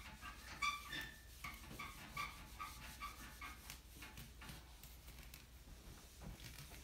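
Dry-erase eraser rubbed in quick strokes across a whiteboard, squeaking faintly with each stroke, about two or three squeaks a second; the squeaks thin out after about three and a half seconds into scattered scuffs.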